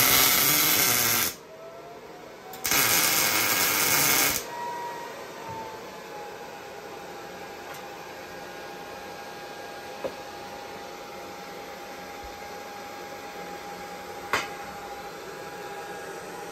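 MIG welder arcing on steel in two short welds, each about a second and a half of steady crackling hiss, a little over a second apart. Later come two light clicks, the second near the end.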